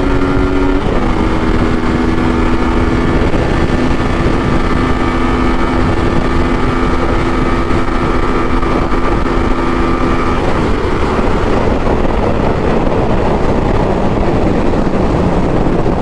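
Yamaha Tracer 900's three-cylinder engine running at a steady cruise under wind rush. The engine note rises slightly about a second in and holds steady, then about ten seconds in it fades under the rushing wind.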